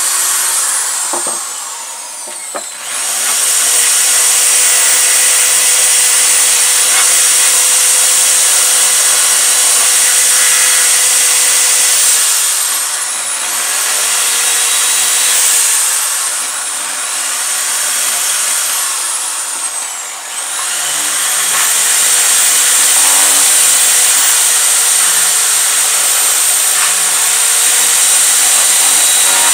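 Corded electric drill boring holes through a wooden board, its motor whining at high speed. It winds down and stops about two seconds in, spins back up, and its pitch sags and recovers several times as the bit loads up in the wood.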